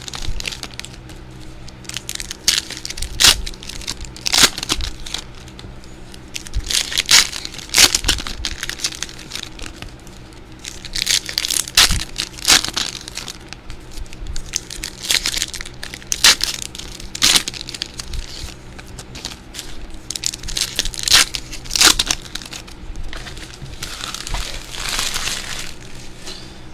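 Trading card pack wrappers crinkling and tearing as packs are ripped open, in a string of sharp crackles over a low steady hum.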